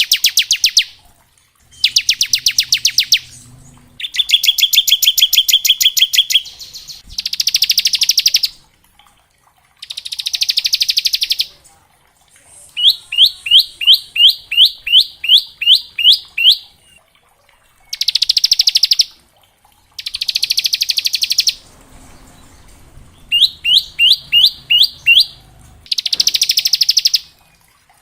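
Bar-winged prinia (ciblek) singing its 'ngebren' song: loud, very fast buzzing trills of a second or two each, repeated after short pauses, with two runs of slower, evenly spaced sharp chip notes in between, about three to four a second.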